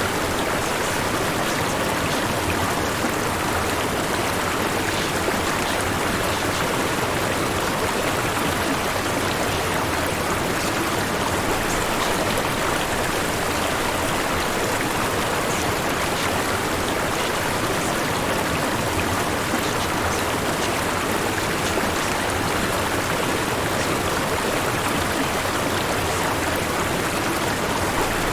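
Steady white noise, an even rushing hiss with no change in level throughout.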